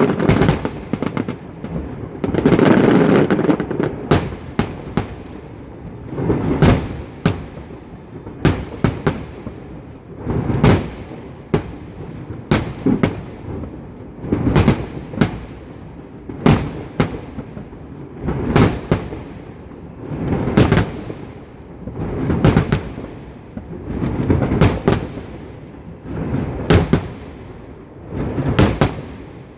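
Festive fireworks salute: shells bursting in volleys about every two seconds, each a sharp bang followed by a rumbling echo, with a longer, denser cluster of bursts a few seconds in.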